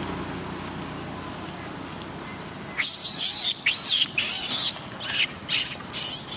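Long-tailed macaques screaming during a scuffle: after a quieter stretch, a run of about seven shrill, harsh screams starts about three seconds in, each well under a second long.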